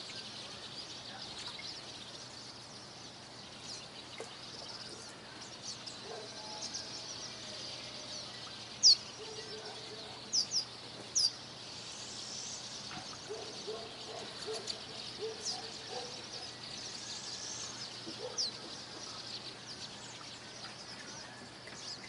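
Morning birdsong: a steady chorus of distant birds, with a few sharp, loud chirps from a nearer bird a little before halfway through.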